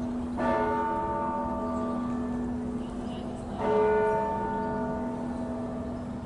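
Russian Orthodox convent church bells. Two strikes about three seconds apart each ring on at length over the steady hum of a lower bell that is still sounding.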